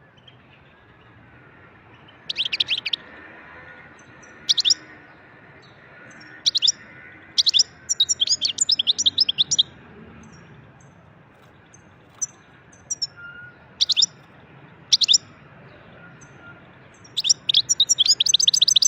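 European goldfinch singing: short bursts of rapid, high, twittering notes in phrases broken by pauses, ending in a fast, dense run of notes.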